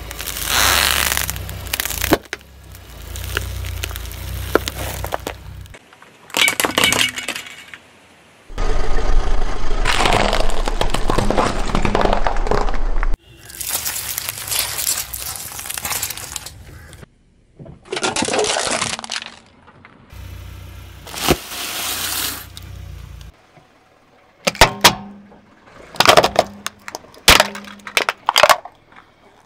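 Car tyre rolling over and crushing one object after another: crunching and cracking with the low rumble of the car in several separate bursts, and a run of sharp cracks near the end.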